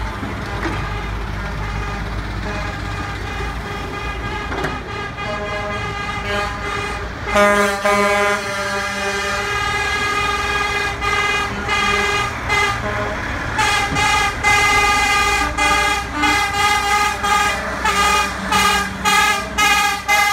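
Heavy tow trucks rolling past with their diesel engines running, then truck air horns: one long blast about seven seconds in, and a run of short, repeated honks, about two a second, over the last several seconds.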